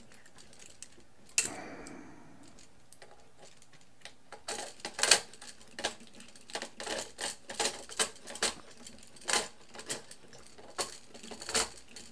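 Irregular small clicks and taps of a hex driver and small screws being worked into a quadcopter's landing-gear bracket, with one sharper click about a second and a half in.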